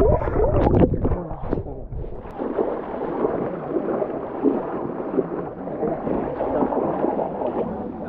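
Water bubbling and churning around a submerged action camera for about two seconds, then muffled splashing and sloshing of feet wading through shallow stream water, heard through the camera's waterproof housing.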